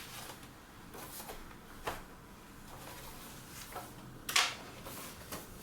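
A few short taps and clicks of something being handled, the loudest about four seconds in, over quiet room tone.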